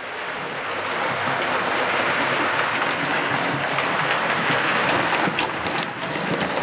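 Model GWR King class 4-6-0 locomotive and its coaches running along model railway track toward the listener: a steady rushing hiss of wheels on rails that grows louder over the first couple of seconds and then holds, with a few sharp clicks near the end.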